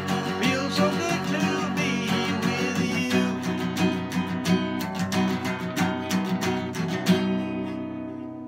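Acoustic guitar strummed in a steady rhythm through the closing bars of a song, with a final strum about seven seconds in that is left to ring out and fade.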